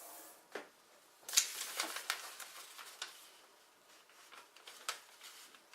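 A sheet of paper being handled and folded by hand: a cluster of crisp crinkling and creasing rustles starting about a second in, then a few light ticks of paper near the end.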